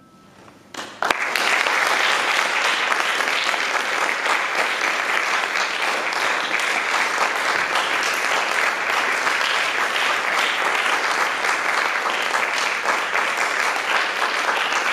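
After a brief hush, audience applause breaks out about a second in and holds steady.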